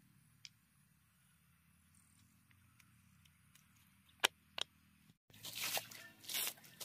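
Pond water scooped up with a basin and thrown out, splashing in repeated loud sloshes every half second to a second, starting about five seconds in. Before that, only faint sound with two sharp knocks about four seconds in.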